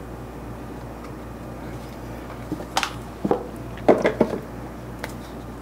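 Kitchen clatter: a few short clinks and taps of a measuring spoon and seasoning jars against a stainless steel mixing bowl and counter, mostly between about three and five seconds in, over a steady low hum.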